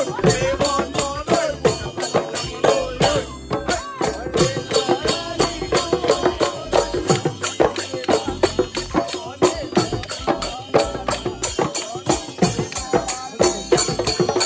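Assamese Bihu folk song sung by a group of voices to a dhol drum beating a steady fast rhythm, about three strokes a second, with jingling percussion along with it.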